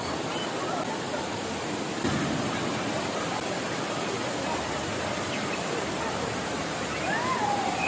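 Waterfall rushing steadily: an even hiss of falling and flowing water.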